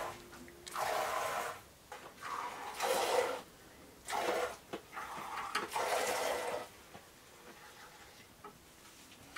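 A goat being milked by hand: jets of milk squirting into a glass jar of frothy milk, five or so hissing spurts about a second apart. The spurts stop about two-thirds of the way through.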